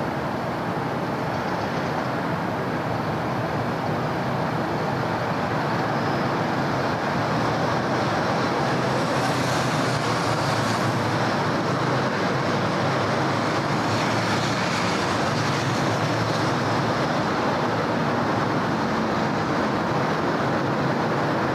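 Steady road traffic: a continuous mix of cars and heavier vehicles passing on a city street. The traffic grows a little louder partway through, as a vehicle passes close by.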